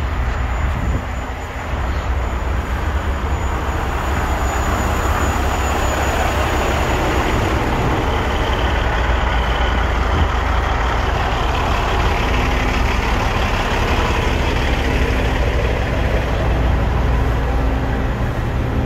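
Heavy diesel truck engine idling: a steady low rumble that does not change.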